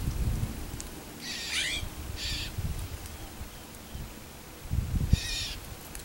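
Songbird giving short, hissing 'sssst' calls: two about a second apart, then another near the end. A low rumble sounds near the end.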